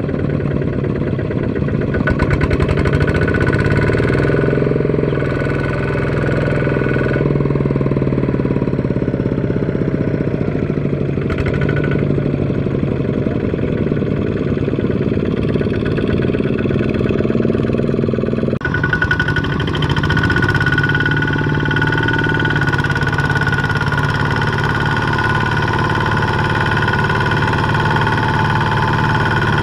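Kubota ZT140 single-cylinder diesel engines of two-wheel walking tractors running steadily under load while hauling a trailer of rice sacks through deep mud. The engine sound changes abruptly about two-thirds of the way through, then carries a steady higher whine.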